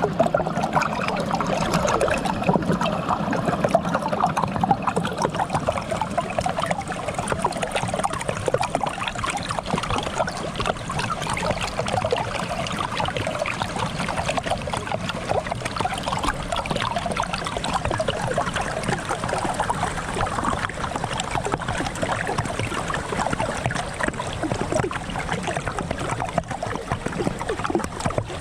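Stream water running and gurgling beneath a sheet of ice, a steady trickling babble.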